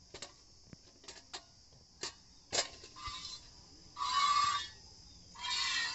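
Hand milking a cow into a steel pail: a few sharp ticks, then, from about halfway, hissing squirts of milk roughly once a second, each with a ringing note from the pail.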